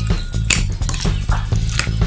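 A metal spoon clinking and scraping against a ceramic bowl as sliced okra is stirred into an egg-and-flour batter, with a few sharp clinks about every half second. Background music plays underneath.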